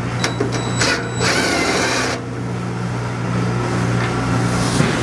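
Cordless drill with a socket running on an exhaust flange bolt to spin it out, while a wrench holds the nut. A few sharp metal clicks come near the start, then a steady motor whir.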